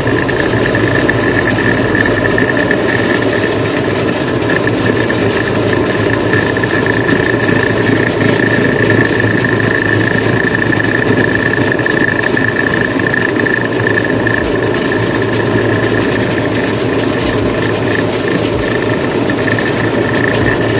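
Top-load washing machine running on test, its motor and gear case turning steadily with a constant high whine over a mechanical hum; the machine is working again after repair.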